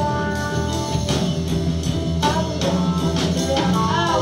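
Live band playing, with electric guitars and drum kit, and a tambourine.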